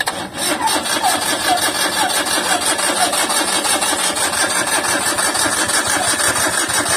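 Suzuki K6A three-cylinder engine turning over on the starter motor in an even pulsing rhythm without catching, then the cranking stops just after the end: the fuel-injected engine won't start.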